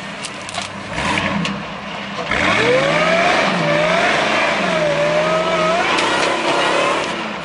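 Ford pickup truck's engine during a burnout: a brief blip about a second in, then revved up and held high, its pitch wavering for several seconds before it drops back near the end.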